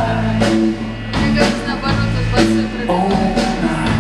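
Live rock band playing: electric guitars, bass and drum kit, with cymbal crashes about once a second, and a male singer's voice over the band.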